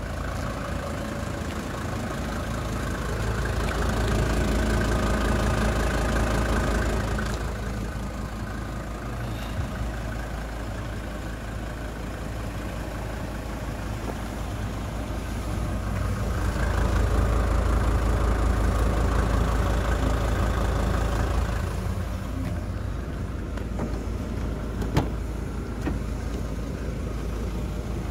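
2003 SsangYong Korando 290SR's 2.9-litre five-cylinder diesel idling steadily, swelling louder twice for a few seconds. A sharp click near the end as the rear swing-out door is opened.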